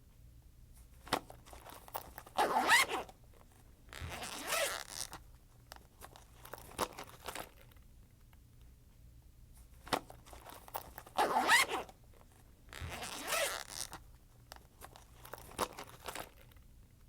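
Backpack zipper pulled four times, in two pairs of quick strokes about eight seconds apart, each stroke lasting under a second, with small clicks and rustles of handling between them.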